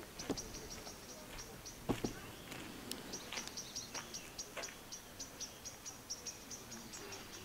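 Outdoor chirping: a long run of short, high chirps repeating about three to four times a second. A few sharp clicks fall near the start and around two seconds in.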